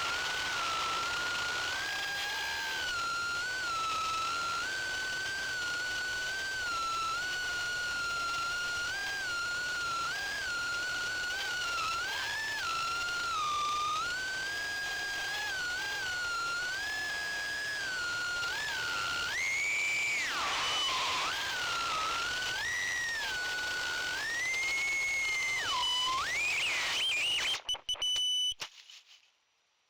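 2-inch FPV quadcopter's Gemfan 1105 7500KV motors with four-blade 2-inch props whining in flight, a high tone that wavers gently with throttle. In the last third the pitch swings sharply down and back up several times, then the sound breaks up and cuts off about two seconds before the end.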